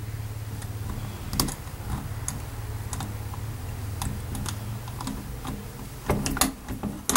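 Scattered sharp clicks of a combination key lockbox being worked, with a quicker, louder run of clicks and clatter near the end as it is opened, over a steady low hum.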